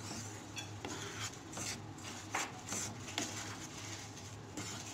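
Wooden spatula scraping and turning dry flour across a pan as it is dry-roasted: irregular scratchy strokes, two or three a second, over a low steady hum.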